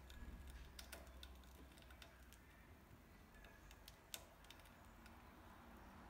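Faint, irregular clicking of a budgerigar's beak pecking and nibbling at a bark-covered perch, with one louder click about four seconds in.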